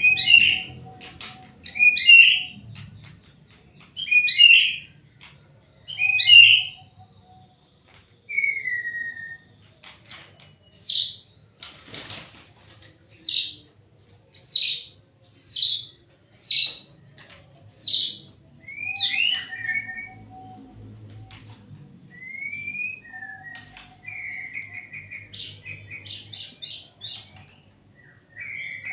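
White-rumped shama singing loud whistled phrases: a short phrase repeated about every two seconds, then a string of clear high notes, then quicker chattering runs near the end. A single sharp knock about twelve seconds in.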